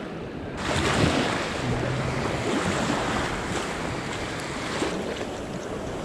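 Ocean surf washing up the beach at close range, with wind buffeting the microphone. The hiss jumps up sharply less than a second in.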